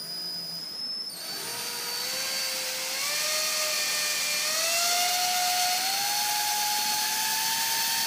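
Cordless drill running, boring a small pilot hole through the thin metal casing of a crankshaft oil seal. The motor whine starts suddenly and climbs steadily in pitch.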